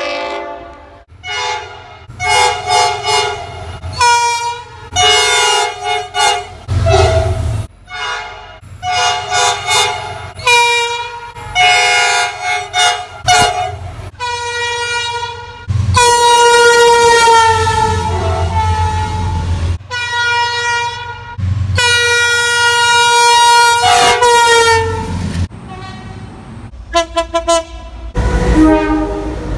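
Train horns sounding a run of blasts, mostly short, with two long held blasts in the second half and chords that change from blast to blast. A low rumble runs underneath at times.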